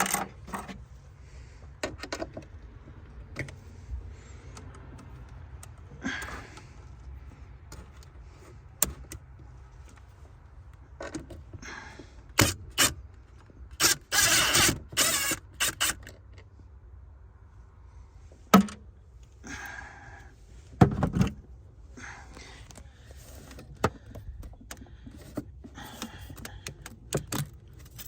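Scattered clicks, clinks and scrapes of hand tools and metal parts as the positive cable is worked loose from a car battery terminal, with a louder spell of scraping and rattling about halfway through.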